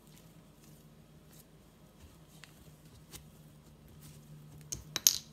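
Hands kneading soft homemade play dough: faint squishing and patting, with a quick run of sharp taps near the end.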